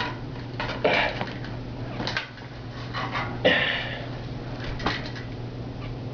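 Bicycle front wheel being worked out past the brake calipers: a series of short metallic clanks and rattles, the loudest about three and a half seconds in.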